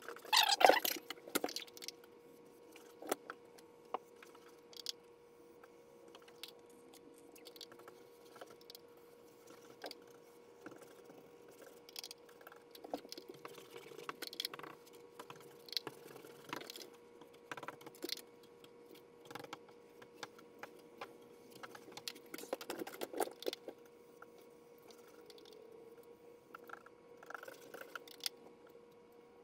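Scattered light clicks, taps and small rattles of things being handled, over a faint steady hum. The loudest knocks come about half a second in.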